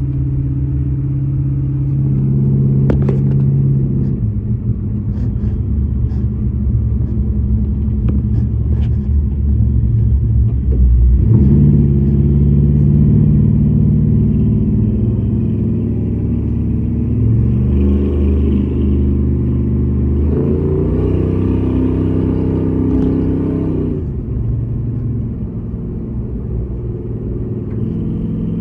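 1965 Chevrolet Impala SS engine and exhaust running under way, heard from inside the cabin. The engine note rises and falls several times as the car speeds up and eases off, climbing in steps a little past two-thirds of the way through.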